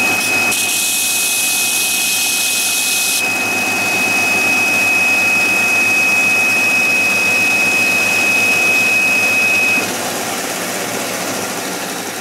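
Belt sander running with a steady high whine. For about the first three seconds a small wooden wheel is held against the moving sanding belt, adding a hiss. About ten seconds in the whine stops and the sound drops.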